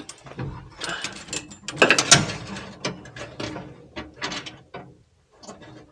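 Clear plastic boost-gauge hose being pushed and worked through a rubber grommet: a run of irregular scraping and clicking handling sounds, loudest about two seconds in.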